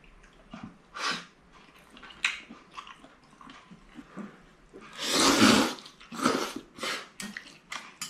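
Close-up eating sounds: small clicks and sucking noises while picking at a shellfish, then seafood noodles slurped from the bowl, the longest and loudest slurp about five seconds in, followed by two shorter ones.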